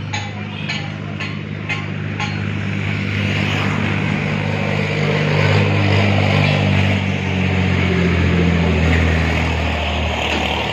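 Diesel tractor engine running steadily, pulling a bed maker, with a few sharp knocks in the first two seconds. The engine grows louder after about five seconds.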